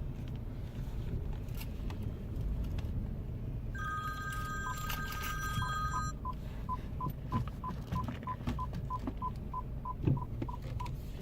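BMW 3 Series rear parking sensor (PDC) warning beeping in reverse: short even beeps at about three a second, starting about five seconds in, after a steady two-note tone of about two seconds. A low engine rumble runs underneath.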